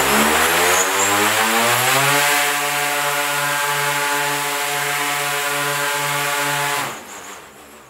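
Two MAD M20 electric drone motors spinning 32-inch ducted propellers at high throttle. Their hum rises in pitch as they spool up over the first two seconds, then holds steady with a slow wavering beat. About seven seconds in, the power cuts sharply and the propellers wind down, as in a simulated motor-failure test.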